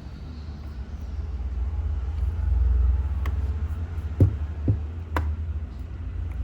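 Low steady rumble with four short, light clicks and knocks in the second half, two of them close together a little past the middle.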